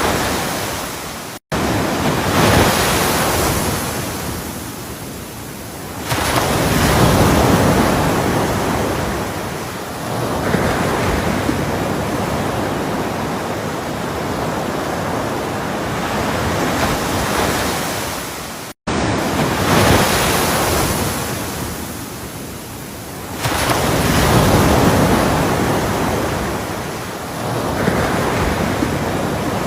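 Ocean surf: waves breaking and washing up the shore in repeated surges a few seconds apart, each swelling up and then ebbing away. The sound cuts out for an instant twice.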